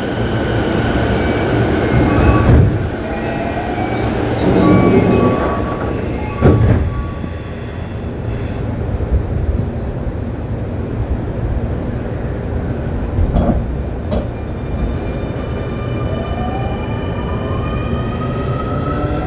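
Keio 9000 series electric train running, with steady wheel and motor rumble, electric whines and a few sharp knocks from the track. Near the end the motor whines climb steadily in pitch as the train accelerates.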